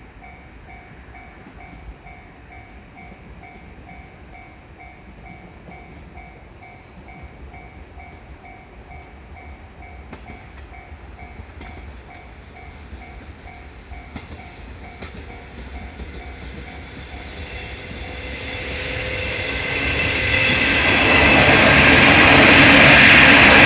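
Japanese railroad crossing alarm ringing its steady, evenly repeating "kan-kan" tone. An electric train approaches, and the rumble and rail noise swell from about two-thirds of the way in until the train is passing loudly at the end, drowning out the alarm.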